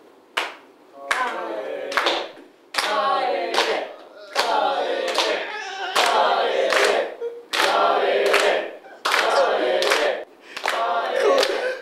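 A small group of people clapping and calling out together in unison, in a repeated chant of about eight phrases, many opening with a sharp clap.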